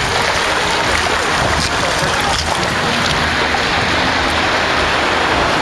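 Shallow ocean surf washing over flat wet sand, a steady rushing noise, with dogs splashing through the shallows.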